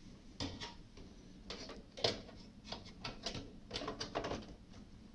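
Light, irregular clicks and knocks of a graphics card's metal bracket and edge connector being worked into a motherboard slot in a sheet-metal PC case, the loudest click about two seconds in.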